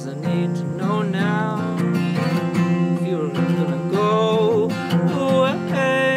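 Acoustic guitar strummed steadily, with a man's wordless sung vowels gliding over it in two long phrases.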